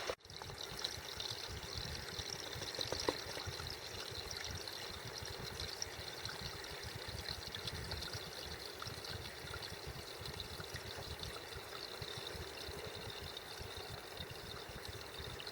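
Small spring or rivulet of groundwater trickling and running steadily.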